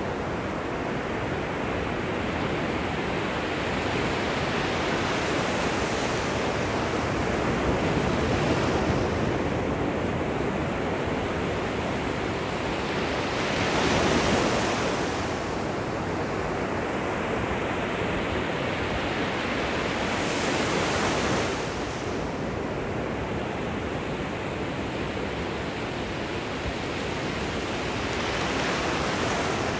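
Gentle surf at the shoreline: small waves breaking and washing up the beach in a steady hiss. It swells louder three times, a few seconds apart, as individual waves break.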